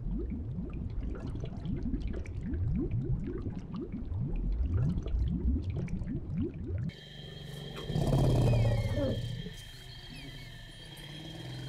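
Many short, low, rising underwater calls, several a second, cut off abruptly about seven seconds in. Savanna ambience follows, with a steady high-pitched drone and a loud, low African elephant rumble about a second after the cut.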